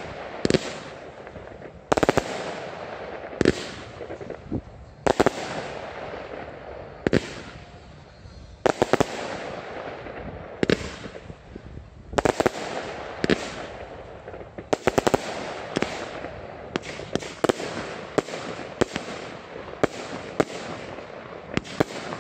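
Fireworks display without aerial shells, fired from the ground: a steady string of sharp launch pops, irregular and sometimes several in quick succession, with hissing and crackle between.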